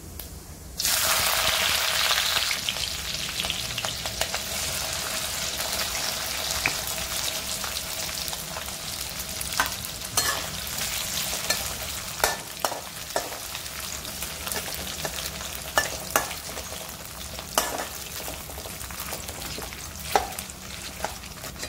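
Diced potatoes and green chillies dropped into hot oil and cumin seeds in a kadhai, bursting into a loud sizzle about a second in that settles into steady frying. Later, a metal spatula stirring and scraping the pan adds sharp clicks over the sizzle.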